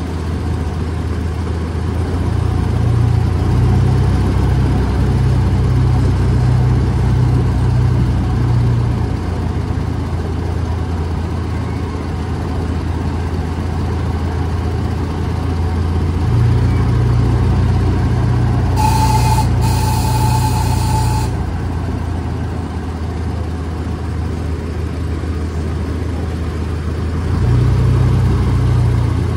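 Miniature park train's locomotive engine running steadily as it pulls the cars, its low drone swelling louder several times. About two-thirds through, two short high-pitched horn toots sound one right after the other.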